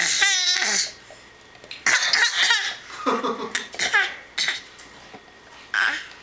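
Young child making squawking, duck-like vocal noises in about five short bursts; the first is high and wobbling.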